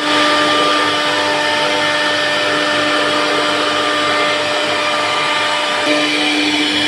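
CNC router spindle running and cutting wood: a steady motor whine over hiss, its pitch shifting slightly about six seconds in.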